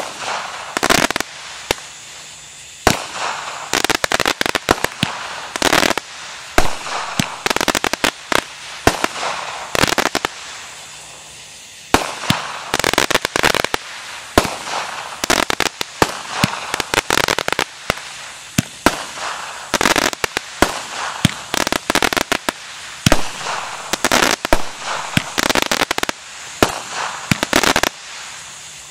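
The Charging Griz, a 20-shot multi-shot aerial firework cake, firing shot after shot: sharp bangs, each followed by clusters of rapid pops, with a short lull about ten and a half seconds in.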